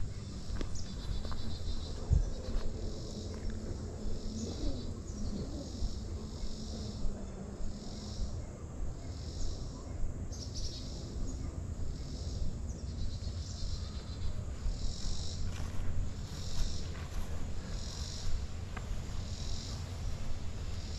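Insect song in summer woodland: a high-pitched buzzing that pulses about once a second, over a low rumble.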